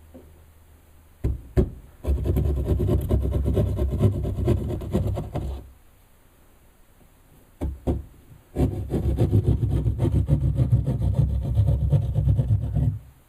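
Wall saw cutting a hole through a wall for a wall outlet. There are two spells of rapid back-and-forth sawing strokes, each a few seconds long, and each starts with a couple of sharp knocks.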